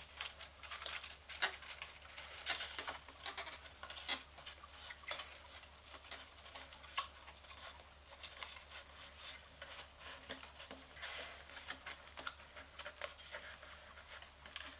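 Cardboard VR viewer being folded and handled: irregular light taps, clicks and scrapes of cardboard flaps and pieces.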